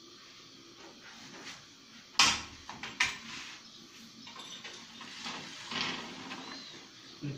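A long iron fire rake clanking and scraping in a wood-fired oven as the fire is worked: two sharp clanks a little after two seconds and at three seconds, then softer scrapes and rattles, and another knock near the end.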